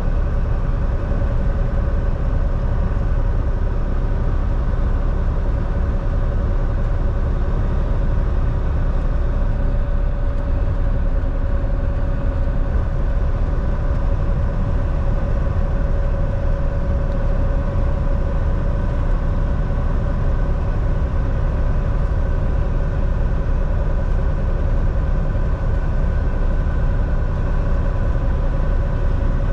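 Semi truck's diesel engine and road noise at a steady speed: an even, low drone with a steady whine above it and no changes in pace.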